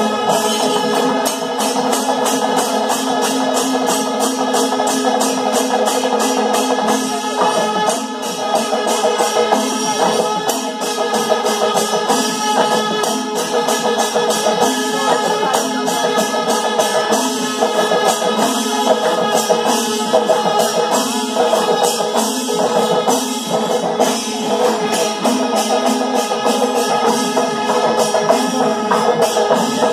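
Chendamelam: chenda drums beaten in a fast, even rhythm with ilathalam hand cymbals clashing, over a dense wash of steady ringing tones.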